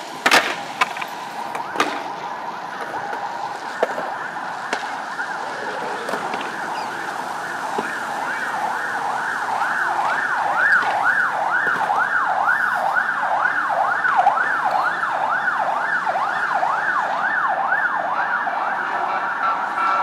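An emergency vehicle's siren going past in the street, at first a steadier tone and then, about eight seconds in, a fast yelp rising and falling about twice a second, loudest around the middle. A few sharp clacks from a skateboard trick come near the start.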